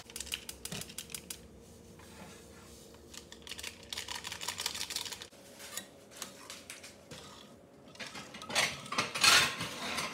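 A metal spoon stirring tomato sauce in a stainless steel pan, clinking and scraping against the pan's sides and bottom in scattered clicks. The clatter is loudest near the end.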